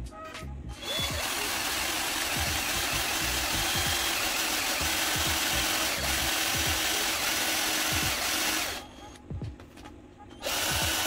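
Cordless drill running steadily as it bores into an acrylic board, stopping briefly about nine seconds in and starting again near the end. Background music underneath.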